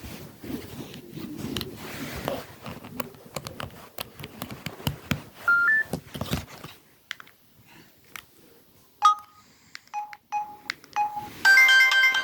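Samsung SGH-M200 mobile phone handled with rustling and key clicks, then a few short keypad beeps. Near the end a ringtone melody starts playing, much louder than the rest.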